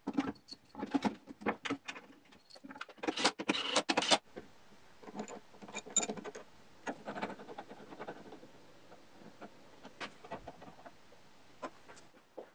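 Clicks and light clatter of wooden blocks and metal bandsaw blade guide parts being handled and fitted onto the saw. It is densest and loudest in the first four seconds, then thins to scattered clicks.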